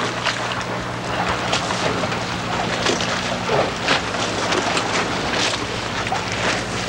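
Wind buffeting the microphone and water washing past a boat's hull on open water, with a steady low hum underneath.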